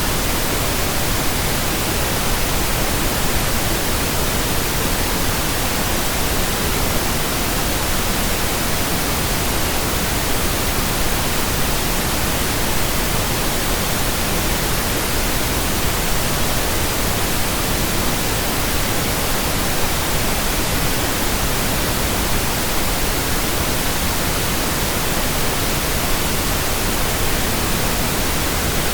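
Steady generated pink noise: an even static hiss, like a radio station not in tune, spread across all pitches with no change in level.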